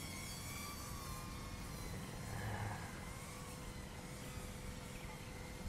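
Motor whine of a Mobula 8 FPV drone flying, a thin high whine that rises and falls a little as the throttle changes, over low wind rumble.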